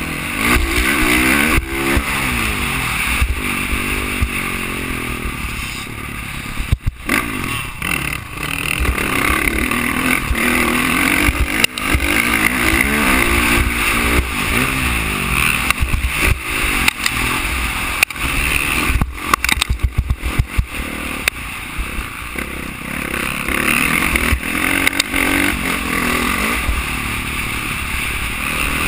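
Dirt bike engine revving hard and easing off over and over, its pitch rising and falling through the gears, heard from the rider's helmet over a steady rumble of wind and track noise. The engine sound drops out briefly about seven seconds in and again around twenty seconds in, when the throttle is shut.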